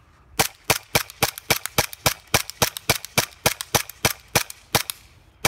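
KWA H&K USP gas blowback airsoft pistol, tapped to HPA at 120 PSI, firing semi-auto in rapid succession: about sixteen sharp pops, three to four a second, starting about half a second in.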